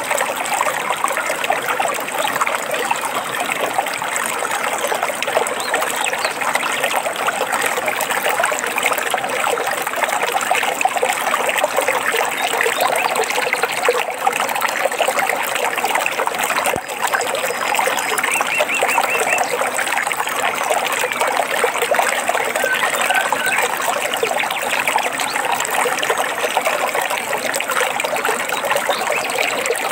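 Stream water trickling and babbling steadily, with a few faint bird chirps in the second half.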